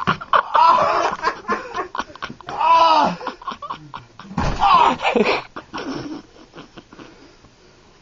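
People laughing and yelling in loud bursts during a rough-and-tumble scuffle on the floor, with scattered sharp slaps and knocks, dying down near the end.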